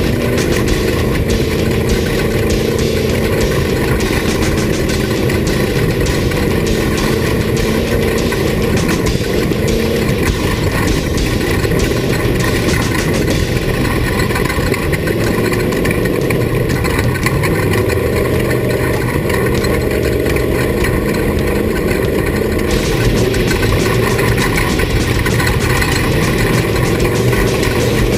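Off-road race vehicle's engine running continuously, its pitch rising and falling as the throttle changes, with constant clatter and rattling throughout.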